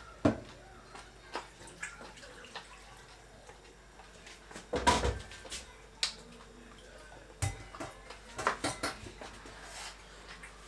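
Kitchen clatter: utensils and pots knocking and clinking in scattered short strokes, loudest in a cluster about five seconds in.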